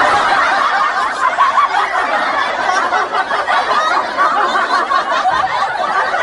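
Canned laughter: a steady, dense wash of many people laughing at once, laid over the picture as a laugh track.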